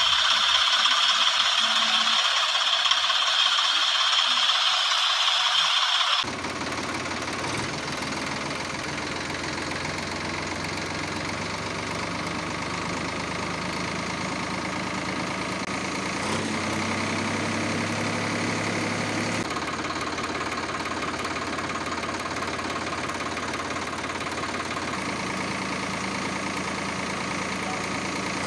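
For the first six seconds a high, hissing whine, which cuts off abruptly. Then a tractor engine sound runs steadily at a low pitch, its tone shifting in steps a few times.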